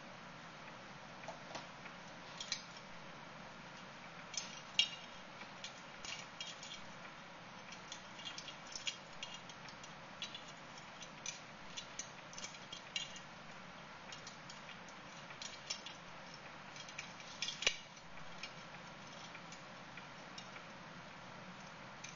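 Irregular light clicks and clatter of small objects being handled on a tabletop, over a steady faint room hum; the loudest clicks come about five seconds in and in a quick cluster late on.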